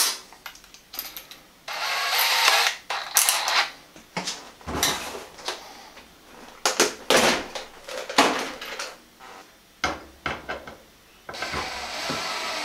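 Cordless drill running in short bursts while boards are pre-drilled: about a second near the start and a longer run near the end. In between come sharp knocks and clatter of tools and wood being handled.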